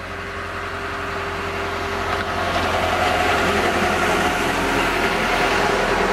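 Narrow-gauge train running on the line, a steady low engine hum and rail rumble growing louder over the first three seconds as it draws closer, then holding steady.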